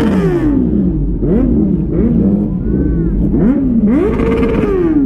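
Superbike engines revving, the pitch repeatedly rising in quick blips and falling back, with several engines overlapping.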